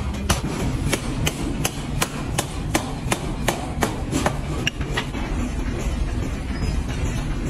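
Forging hammer striking a hot carbon steel billet in a rapid, even rhythm of about three blows a second, stopping about five seconds in. A steady low machinery rumble runs underneath.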